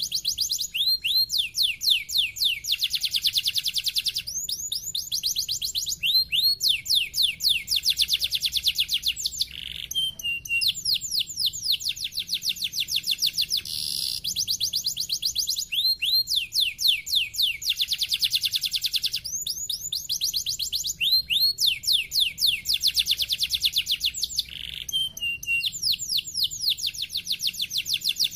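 Domestic canary singing: long, high-pitched phrases of very fast trills, each made of quick upward-sweeping notes, broken by short pauses every few seconds.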